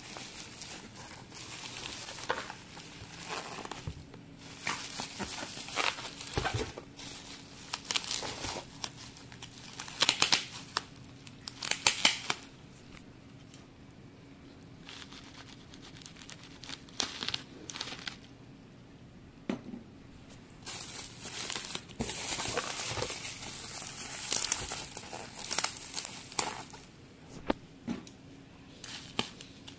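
Plastic bubble wrap around a protein-powder tub crinkling and rustling as it is handled, in irregular bursts of crackle. It quietens for several seconds partway through, then becomes busy again.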